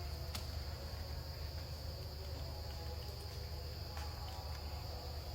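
Steady high-pitched insect chorus, an even unbroken drone, over a low rumble, with a couple of faint clicks.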